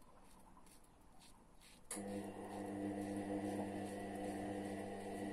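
Faint scraping strokes of a Fatip Testina Gentile closed-comb safety razor cutting through lathered stubble. About two seconds in, a steady hum of several pitches starts suddenly and becomes the loudest sound.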